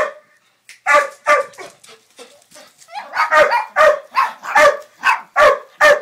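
A dog barking repeatedly at a bird perched out of its reach: a couple of barks about a second in, then a steady run of about two barks a second over the second half.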